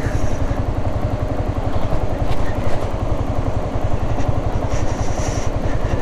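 Yamaha R15 motorcycle's single-cylinder engine running steadily at low speed, a fast, even low-pitched pulse.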